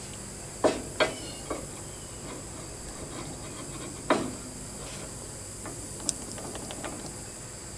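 Metal clinks and knocks as a steel steering spindle is handled and fitted into the front axle of a John Deere 400 garden tractor. There are two sharp knocks just under a second in, another about four seconds in, then lighter clicks, over a steady high hiss.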